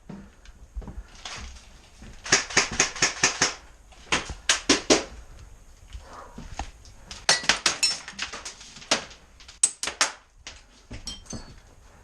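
Airsoft guns firing: several quick bursts of sharp snaps at about seven a second, with a few single shots near the end.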